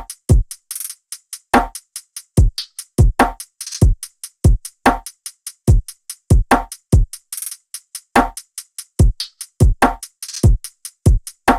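Electronic drum-machine beat: deep kicks that drop in pitch, short clicky hits between them, and an occasional clap-like burst.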